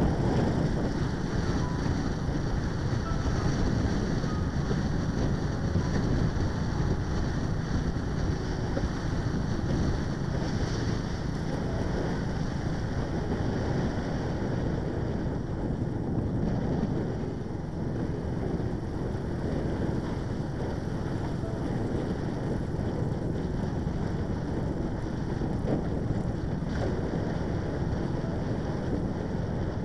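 Steady wind rush over a helmet-mounted action camera's microphone on a moving motorcycle, mixed with road and vehicle noise.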